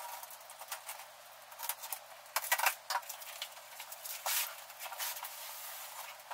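Cardboard shipping box being opened by hand: packing tape peeling and crackling, cardboard flaps rustling and knocking, with a run of irregular sharp clicks and scrapes. Near the end the boxed product slides out against the cardboard.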